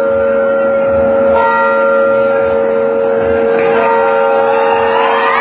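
A bell ringing with a long, steady tone, with a fresh stroke about a second and a half in; shouting voices begin to rise over it near the end.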